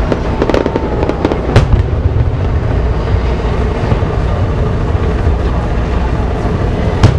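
Aerial fireworks shells bursting: several sharp bangs in the first two seconds and another loud one just before the end, over a continuous low rumble.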